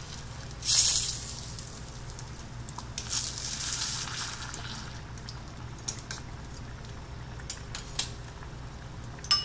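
Fish tinola broth simmering in a small stainless steel pot on a gas stove while metal tongs stir and push fish into it. A loud short rush of noise comes about a second in, and the tongs click sharply against the pot a few times later on.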